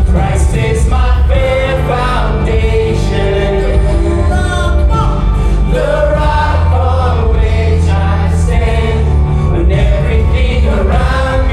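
Live gospel worship music: a group of voices singing together over a band with heavy bass.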